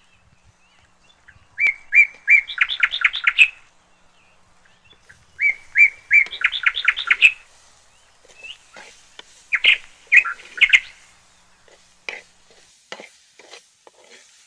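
A songbird singing: two phrases, each a few even notes running into a fast trill, then a shorter burst of notes about ten seconds in. Faint soft clicks follow near the end.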